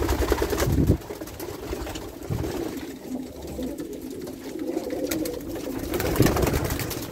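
A crowd of racing pigeons cooing, several birds at once, swelling about six seconds in. A low rumble sits under the cooing in the first second.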